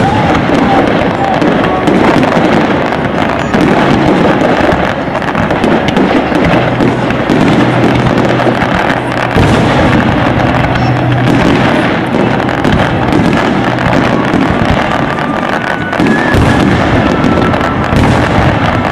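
Fireworks display: a dense, continuous run of aerial shell bursts, pops and crackling, with music playing along.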